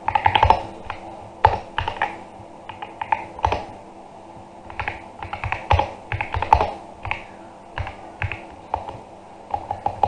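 Custom SK73 mechanical keyboard with tape mod and mixed Akko Crystal and Ajazz Huano Peach switches, typed on slowly. Irregular clusters of keystrokes come with short pauses between them, a soft, creamy sound.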